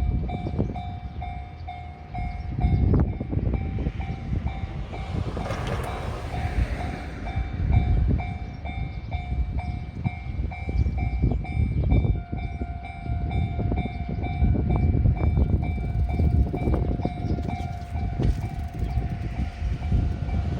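Japanese level-crossing warning bell ringing at a steady rate of about two strikes a second while an electric commuter train runs through the crossing with a heavy rumble of wheels on rails. About twelve seconds in, a second, higher tone joins the bell.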